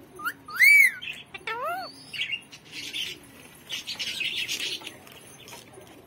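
Green Indian ring-necked parakeet calling: a loud rising-and-falling whistled call about half a second in, a shorter similar call a second later, then softer raspy chatter that fades out.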